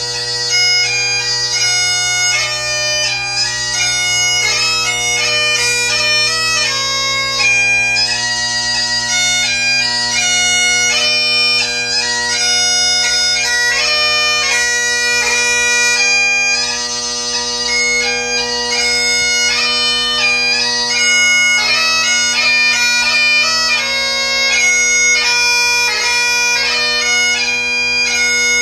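Great Highland bagpipe played solo: steady drones sound continuously beneath the chanter melody, which moves quickly from note to note with many short grace notes.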